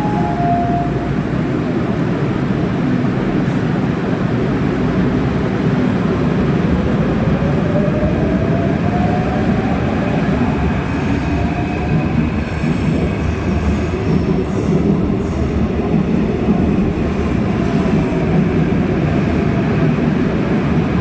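Seoul Subway Line 7 train pulling out of the station. A steady rumble runs throughout, and the traction motors give a whine that rises in pitch as the train accelerates, from about a third of the way in. A run of sharp clicks comes near the middle.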